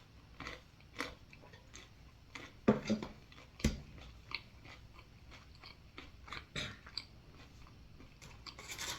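A person chewing and biting food close to the microphone: a string of short mouth clicks and crunches, with two louder bites a little under three and about three and a half seconds in.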